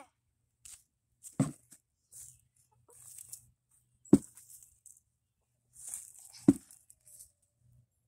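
Hens clucking: three short, sharp clucks a couple of seconds apart, with faint hissy noises between them.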